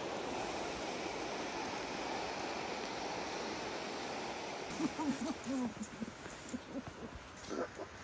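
River water rushing, a steady noise for about the first five seconds. Then it drops away suddenly and a run of short, wavering low calls follows, several in quick succession.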